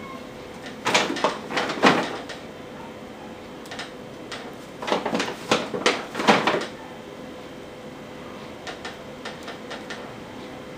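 Plastic straws of a straw-and-pipe-cleaner frame rattling and rubbing as a pipe-cleaner joint is worked into their ends, in two bursts about a second in and about five seconds in, with a few light ticks near the end.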